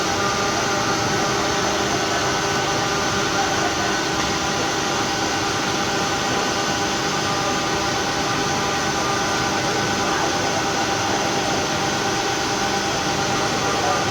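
Induction furnace melting steel, running with a steady hum and a high steady whine over loud, unchanging machinery noise.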